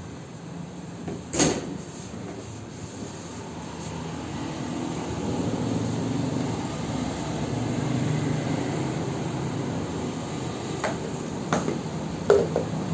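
Paint-mixing machine running: a steady low rumble that builds up about four seconds in. There is a sharp knock early on and a few more knocks near the end.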